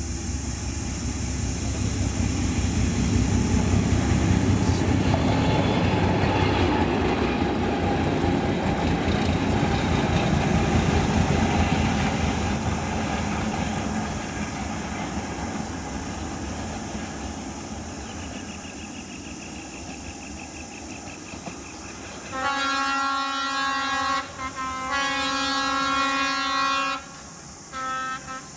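D12E diesel locomotive passing: its engine rumble swells as it comes near, is loudest a few seconds in, then fades as it moves off. Near the end a locomotive horn sounds two long blasts and a short one.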